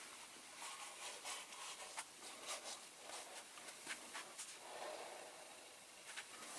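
Faint, irregular fizzing and crackling of a caustic soda bath bubbling as it strips paint from die-cast toy car parts.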